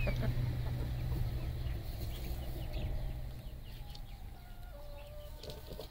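Dominant cross hens clucking softly, with a few drawn-out calls near the end, over a low rumble that fades out after the first few seconds.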